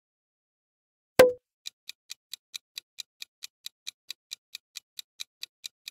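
Countdown-timer sound effect: quick, even, high clock ticks, about four to five a second, starting just after a single loud sharp pop about a second in.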